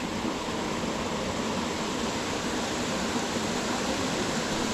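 Steady rush of a mountain stream or small waterfall, an even unbroken hiss of flowing water.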